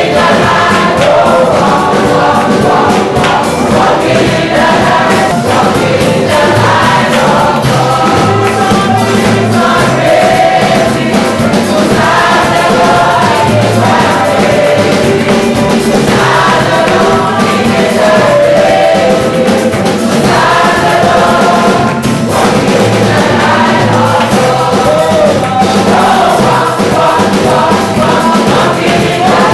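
Gospel music with a choir singing over a steady beat.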